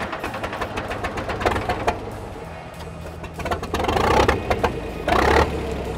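The 1942 Ford SnoGo's separate snow-blower engine being cranked and coming to life as the throttle linkage is worked by hand. It gets louder over the last couple of seconds. Music plays underneath.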